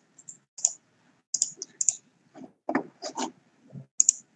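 Irregular clicking of a computer mouse and keyboard, over a dozen short, sharp clicks.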